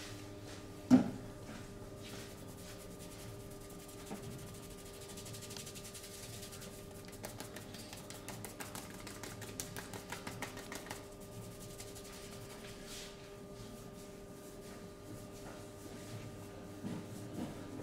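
Hands working on skin during a massage: soft rubbing with light, irregular clicks and taps, and one sharp thump about a second in. A faint steady hum sits underneath.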